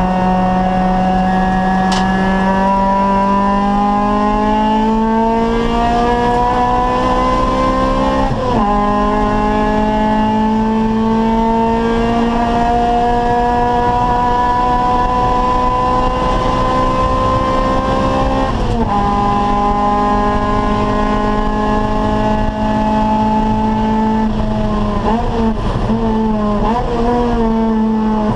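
Acura Integra race car's four-cylinder VTEC engine pulling hard under full throttle, its pitch climbing steadily through the gears with two upshifts, the first about eight seconds in and the second about ten seconds later. Near the end the pitch wavers up and down in quick blips as it downshifts for a corner, then climbs again.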